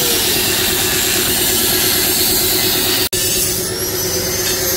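Electric angle grinder with a cut-off disc cutting into the steel shell of a TVS Apache RR 310 motorcycle muffler: a steady high whine over harsh grinding noise. It breaks off for an instant about three seconds in, then the whine climbs again as the disc spins back up.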